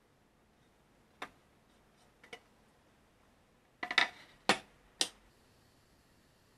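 Short wooden and hard knocks and taps from a wooden chopping board and spatula against a frying pan as sliced mushrooms are scraped into it. There is one knock about a second in and a couple of light taps around two seconds. A louder cluster of clatter comes at about four seconds, followed by two sharp knocks.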